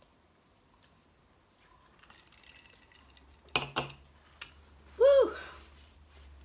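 A woman eating and drinking: quiet at first, then two sharp clicks a fraction of a second apart and a smaller click. About five seconds in comes a short, loud hummed vocal sound that rises and falls in pitch.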